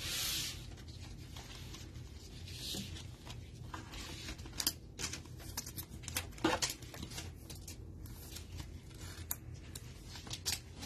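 Gloved hands handling trading cards: soft brushing and sliding swishes, then scattered light clicks and taps as a card is slipped into a rigid plastic toploader.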